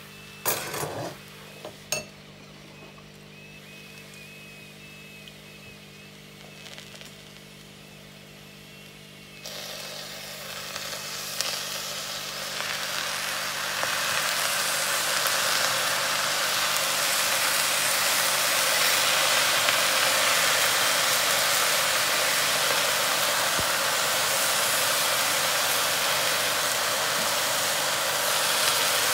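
A few knocks of cookware, then a steady hiss of saffron-butter liquid sizzling and steaming in the hot pan of rice, building over several seconds and staying loud.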